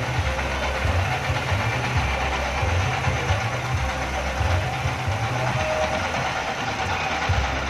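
Diesel engine that drives a kora-kora pirate-ship swing ride, running continuously with a deep, uneven low throb and a knocking beat.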